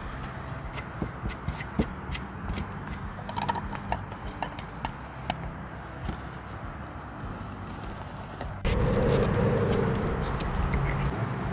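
Plastic dryer vent hood being handled and pushed into a hole cut in an RV's thin fiberglass wall: scattered clicks, taps and scraping of plastic against the wall. About three-quarters of the way through, this gives way abruptly to a louder, steady background sound.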